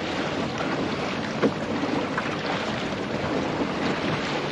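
Water rushing and splashing along the hull of a small wooden sailing yawl under way at a good pace, with wind on the microphone. A light knock about a second and a half in.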